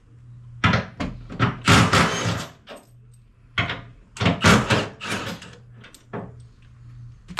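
Loud knocks and clanks of metal tools and parts during suspension work: a cluster of hits in the first five seconds and one more about six seconds in, over a steady low hum.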